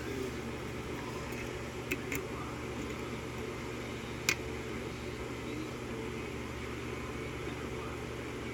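Lock pick working the pins of an EVVA five-pin euro cylinder held in a false set, giving a few small clicks: two close together about two seconds in and a sharper one just past four seconds. A steady background hum runs underneath.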